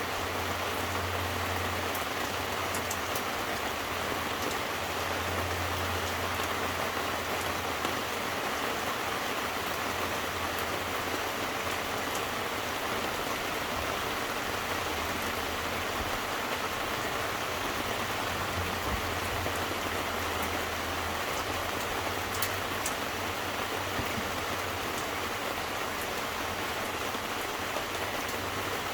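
Steady rain falling, a constant even hiss with a few faint drop ticks. A low hum swells and fades several times underneath it.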